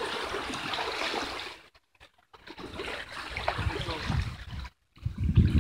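Small waves lapping and trickling over the shore rocks, cutting out briefly twice; near the end wind buffets the microphone with a low rumble.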